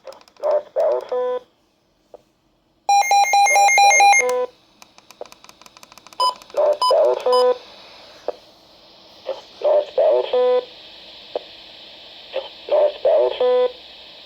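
Electronic alert tones from a weather radio broadcast: groups of short buzzy blips, each ending in a held beep, repeating about every three seconds, with a faster run of beeps about three seconds in. A steady radio hiss comes in underneath about four seconds in.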